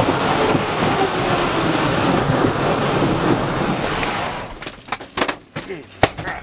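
Loud, steady cabin noise inside a light twin-engine propeller aircraft rolling on the runway, with a faint tone slowly falling in pitch; the near propeller is stopped. About four seconds in, the noise drops away and gives way to clicks and knocks from the camera being handled.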